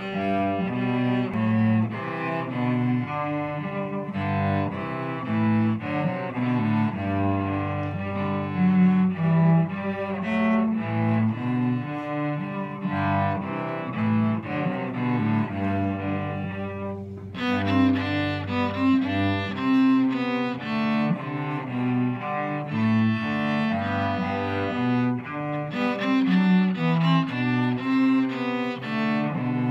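A cello bowed through a continuous run of notes, with a short pause a little past halfway before the playing resumes.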